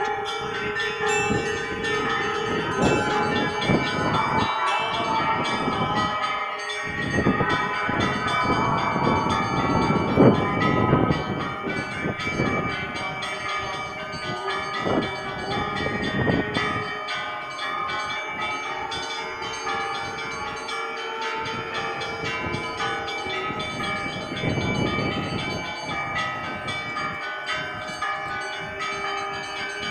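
Church bells ringing a peal, several bells of different pitches struck over one another so their tones overlap and hum on. The strokes come thick and loud in the first half, thin out, then thicken again near the end.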